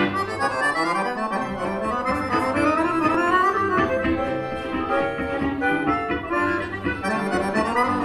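Bayan (Russian button accordion) leading a small ensemble of violins, double bass and piano in a waltz, with quick rising runs.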